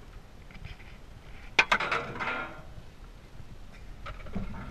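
A sharp knock about a second and a half in, followed by about a second of rattling, heard from inside a car cabin as the car turns on a rollover simulator.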